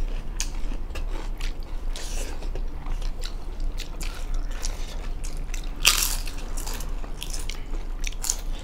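Two people eating rice and chicken with their hands: close chewing and mouth clicks, with one louder crunch about six seconds in, over a low steady hum.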